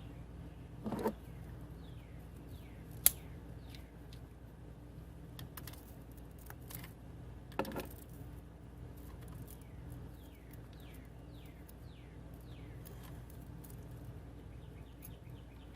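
A few isolated metallic clicks and knocks of a wrench tightening a new battery terminal clamp onto the negative post, the sharpest about three seconds in. Birds chirp repeatedly in the background with short falling calls, over a steady low hum.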